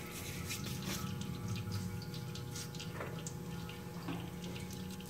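Engine oil draining from the car's underside into a drain pan: a steady pour with scattered drips.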